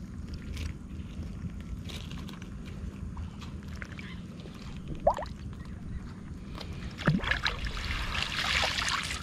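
Water sloshing and gurgling in a shallow stream, with a steady low rumble underneath and a louder splash near the end.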